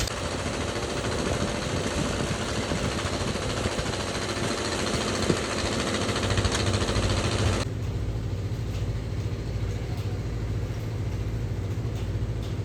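An engine running steadily with a strong low hum under a broad hiss; the upper hiss drops away abruptly about eight seconds in.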